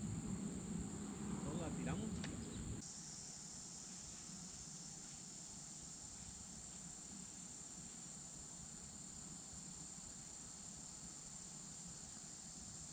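Steady high-pitched chorus of summer insects, faint, with low background noise in the first few seconds that drops away abruptly about three seconds in, leaving the insects clearer.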